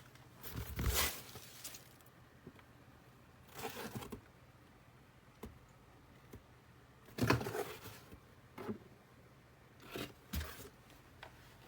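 Four short bursts of rustling and scraping handling noise, over a faint steady low hum.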